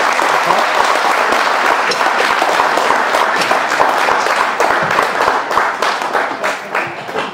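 Spectators applauding and cheering a goal in a football match: a dense clapping that gradually thins out toward the end.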